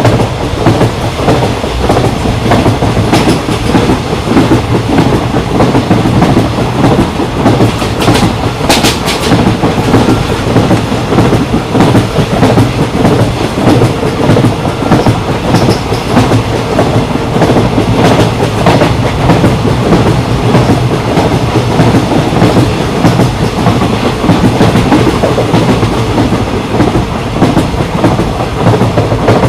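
Indian Railways ICF passenger coach running at speed: a loud, steady rumble of wheels on rail with a rapid clickety-clack as the wheels pass over the rail joints.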